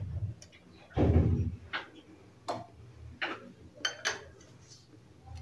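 Metal forks clinking against glass bowls and a ceramic platter in a few separate sharp clicks, with a duller knock about a second in.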